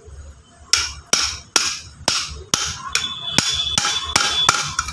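About a dozen steady hammer blows on a steel pipe slipped over the piston rod of a Maruti Swift front shock absorber, driving the rod seal down into the strut body. The later blows ring metallically.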